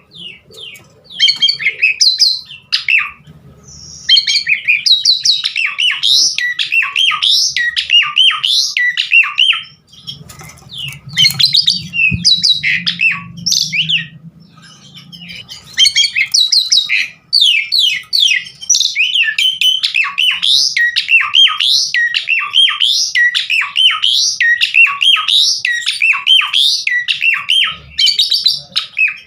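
Javan pied starling (jalak suren) singing a long, fast, varied song of whistles, chatters and harsh notes with mimicked phrases, broken by a few short pauses.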